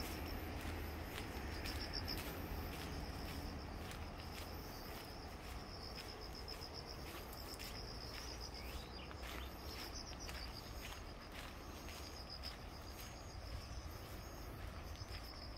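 Insects chirping in repeated pulses, high-pitched, over a steady low rumble, with scattered light clicks.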